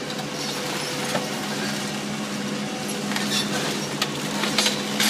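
House demolition: a machine running steadily, with scattered cracks and clinks of breaking wood and debris that come more often in the last two seconds.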